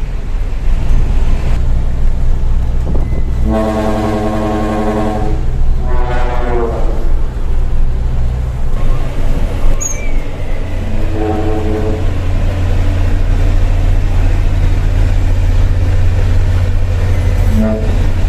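Hino Lohan dump truck running with a steady low engine drone, sounding its trumpet air horn over it. A long, steady blast comes about three and a half seconds in, then a shorter note that bends in pitch, and a brief third blast near the middle.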